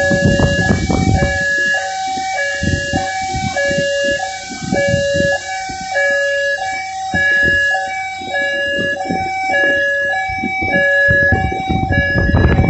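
Two-tone hi-lo alarm sounding steadily, switching between a lower and a higher tone about twice a second. A rushing noise runs under it and is strongest in the first second and again near the end.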